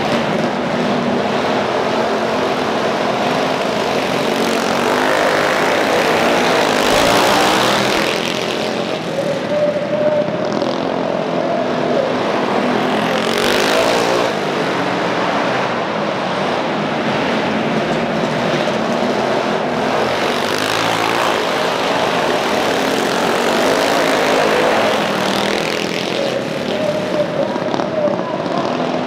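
A pack of mini bikes' small single-cylinder engines racing at full throttle, their pitch rising and falling as the bikes rev through the corners and pass close by. The loudest passes come about a third and halfway through.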